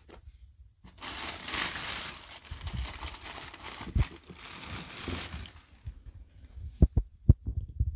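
Tissue paper crinkling as it is pulled open around a sneaker in its shoebox, lasting about four seconds. Near the end come a few sharp, low thumps as the shoe is handled and lifted out.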